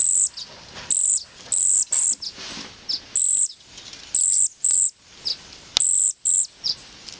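Birds calling: short, very high, thin calls repeated about once or twice a second, with fainter, lower chirps between them. One sharp click near the six-second mark.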